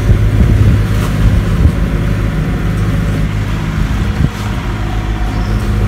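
A sailboat's engine running steadily while under way: a low drone under a rushing hiss of wind and water.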